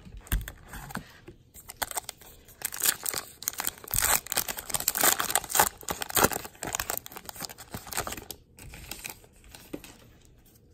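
The paper wrapper of a 2020 Topps Gypsy Queen baseball card pack being torn open and crinkled by hand: a crackling rustle that starts about two seconds in, is loudest in the middle and dies away near the end.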